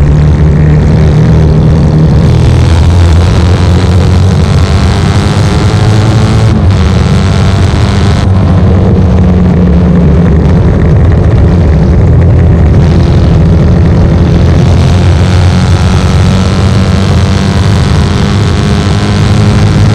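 1972 short-stroke 750 Norton Commando's parallel-twin engine at racing speed, heard from on board with wind rush. The engine note climbs as it accelerates, with two short breaks about six and a half and eight seconds in.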